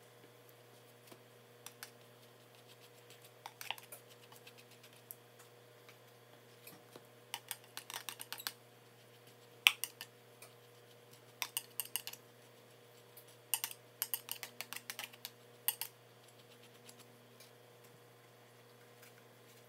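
Butter knife scraping garlic butter across slices of bread and clinking against a measuring cup, in quick bursts of small clicks and scrapes, with one sharper clink about halfway through. A faint steady hum sits underneath.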